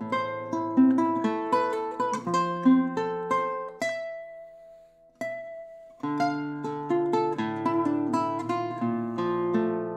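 Solo classical guitar built by 52 Instrument Co., fingerpicked: a run of plucked notes and chords thins to two single ringing notes around four to five seconds in, then fuller chords resume at about six seconds.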